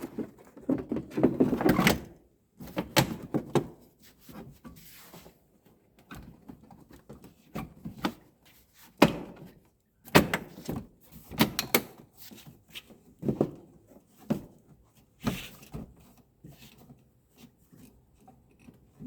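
Irregular clicks, knocks and rattles of 2001 Chevrolet Blazer tailgate parts being handled and fitted back together during reassembly, busiest in the first two seconds.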